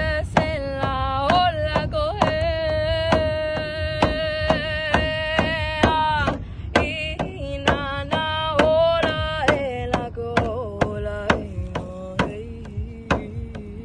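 A voice singing long held, sliding notes over a drum beaten steadily about twice a second. The melody steps lower over the last few seconds.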